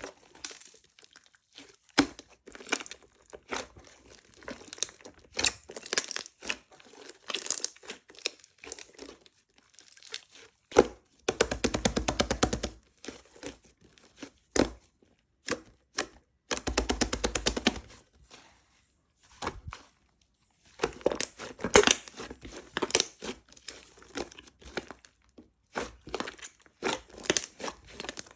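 Slime being played with by hand, with sticky popping, crackling and squishing. Twice it turns into a run of rapid, even squishing, with short pauses between bouts.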